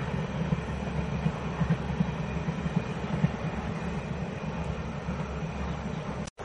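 Train running past on the rails: a steady low rumble of wheels and running gear, with irregular louder knocks. The sound drops out abruptly for a moment near the end.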